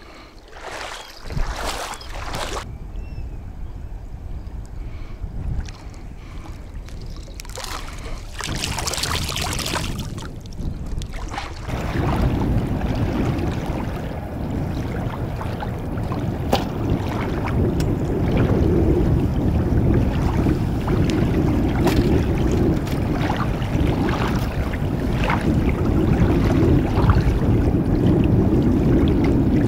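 Wind on the microphone over small waves lapping in shallow water, with a few short splashes in the first seconds as a handful of corn bait is thrown in. From about twelve seconds in the wind rumble is steady and louder.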